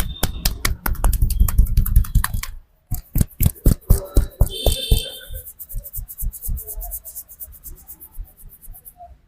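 Rapid percussive hand tapping of a head massage: a fast run of slaps for about two and a half seconds, then after a short break slower, sharper strikes, easing into lighter, quicker taps.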